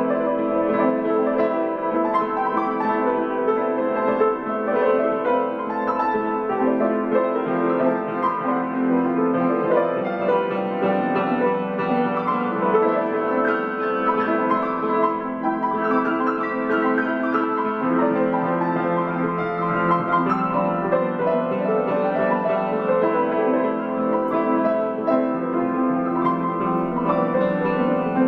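Solo grand piano being played: a continuous, unbroken stream of many notes.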